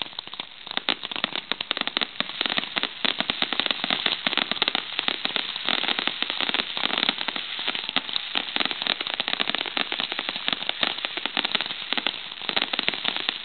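Aerial fireworks display: a dense, continuous barrage of crackles and pops from crackling shells and comets, thickening about a second in.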